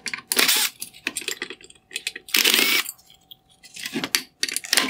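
A power screwdriver runs in one short burst about halfway through, backing out a Phillips head screw that holds the headlight projector to its bracket. Small metallic clicks and taps of the screws and parts come before and after it.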